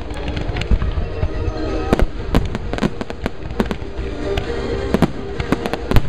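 Aerial firework shells bursting in a rapid, uneven string of sharp bangs and crackles, the loudest just before the end, with music playing underneath.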